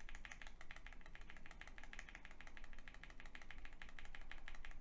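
Rapid, steady typing on a QK65 R2 mechanical keyboard fitted with stock, unlubricated Everglide Aqua King linear switches: a fast, even patter of keystroke clicks, about ten a second.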